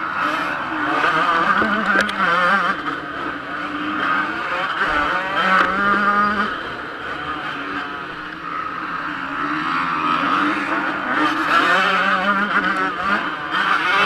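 Yamaha YZ125 two-stroke motocross engine at race pace, revving hard and backing off through the corners, its pitch rising and falling several times, with other motocross bikes running close by.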